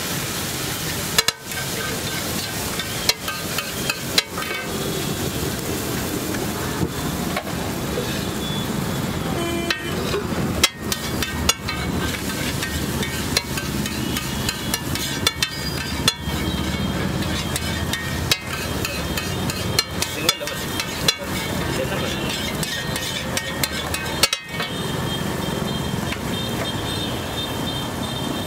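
Metal spatula scraping and clanking on a large iron tawa griddle, with irregular sharp knocks, over the steady sizzle of a watery egg gravy cooking on the hot plate.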